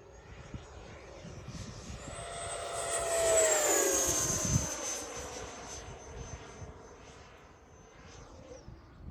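E-Flite Viper 90mm electric ducted-fan RC jet flying past. Its fan whine builds, peaks about three and a half seconds in, drops in pitch as it goes by, then fades away.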